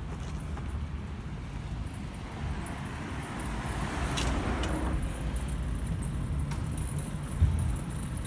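Street traffic with a steady low rumble, and a car passing, swelling up and fading away from about three to five seconds in. Near the end comes a single sharp thump, the loudest sound.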